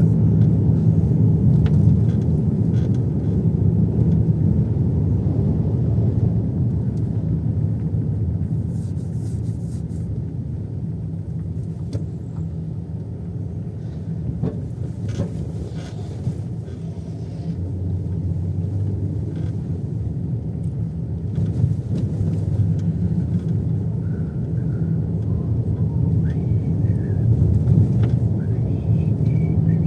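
Steady low rumble of road and engine noise inside a moving car, swelling and easing slightly with speed.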